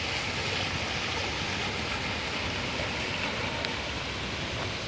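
Steady rushing hiss of water splashing from a fountain's jets, with no breaks.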